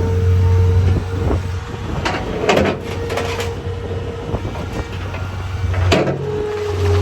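John Deere 320D skid steer's diesel engine running, louder at the start and again near the end than in between. Sharp metallic knocks come about two, two and a half and six seconds in.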